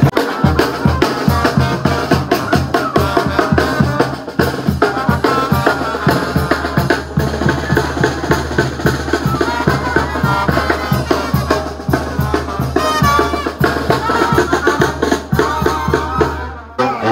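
Village brass band playing a traditional son, with bass drum and snare beating a steady rhythm under a low bass line and the horns.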